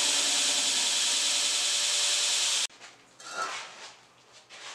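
Belt grinder with a worn zirconia belt grinding down the corners of a fire brick: a loud, steady abrasive hiss that cuts off abruptly about two and a half seconds in. After it, only a few faint scrapes as the brick is handled against the steel tank end.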